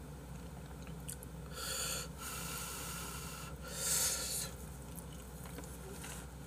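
A person slurping noodles off chopsticks: three hissing slurps between about one and a half and four and a half seconds in, the middle one long and the last the loudest.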